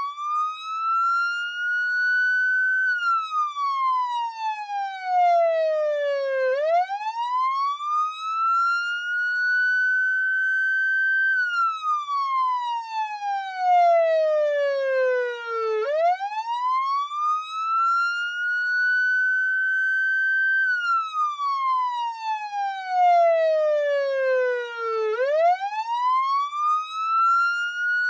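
Police siren on a slow wail. The pitch climbs and levels off high, then falls steadily before turning sharply back up, about once every nine seconds, three times over.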